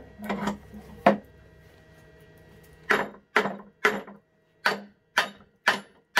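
Hammer striking an old bench vise to free its stuck screw: a few knocks in the first second, then a run of about seven blows roughly half a second apart from about three seconds in.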